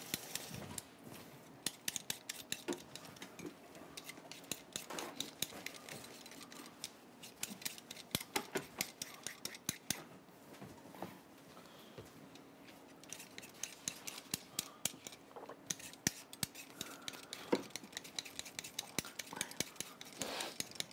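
Kitchen prep clatter: many quick, irregular clicks and taps of utensils, knife and dishes on a counter, coming in bunches.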